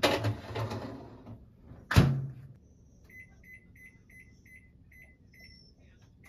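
A baking tray rattling as it is slid into a Panasonic combination microwave oven, then the oven door shut with one sharp knock. After that come about eight short, even beeps, roughly three a second, from the oven's control-panel keys as it is set to bake.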